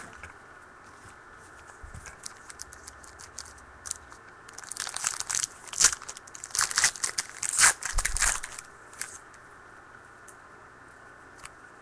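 Foil wrapper of a football trading-card pack being torn open and crinkled, in a burst of crackling from about four and a half seconds in to about nine seconds, with only faint ticks before and after.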